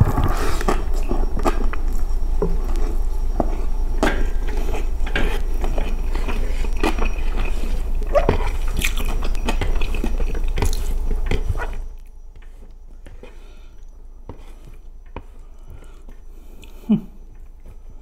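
Close-miked chewing and lip-smacking of a person eating spiced rice and chicken by hand, full of wet mouth clicks. It is loud and busy for about twelve seconds, then drops suddenly to quieter chewing with scattered clicks and one short pop near the end.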